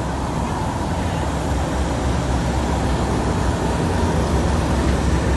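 Class 37 diesel locomotive's English Electric V12 engine idling with a steady low rumble.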